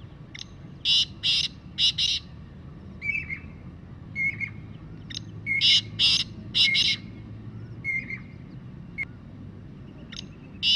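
Black francolin (kala teetar) calling: two phrases of about five loud, grating notes, one about a second in and one about halfway through, with softer single notes between them and a third phrase starting at the very end.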